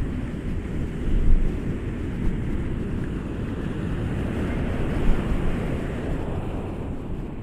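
Ocean surf washing onto a shore, a continuous rushing wash with deep rumble, and wind buffeting the microphone.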